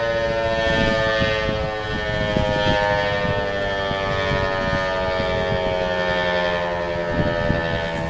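Federal Signal 508-128 rotating outdoor warning siren sounding its dual-tone alert signal, its pitch sliding slowly downward as it begins to wind down.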